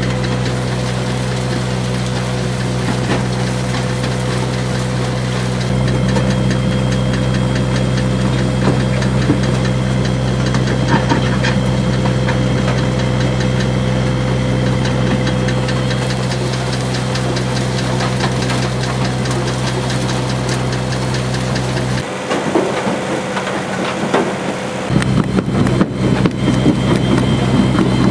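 A vehicle engine running steadily at idle with a low, even hum and a light rapid ticking. Its deep note drops away for a few seconds near the end, then comes back.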